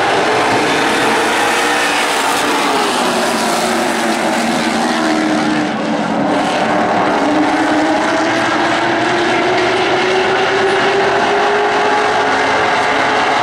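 A pack of NASCAR Late Model stock cars racing, their V8 engines running hard together, with several engine notes sinking and then rising again as the cars come through the turns and onto the straight.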